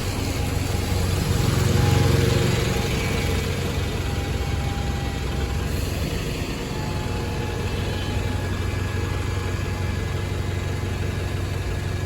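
London bus engine running steadily at low revs, growing louder for a moment about two seconds in.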